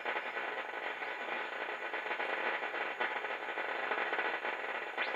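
Static hiss and crackle from the speaker of a 1940 Philco 40-180 tube radio as it is tuned across the police band between stations. Near the end, a whistle sweeps up sharply as the dial passes a signal.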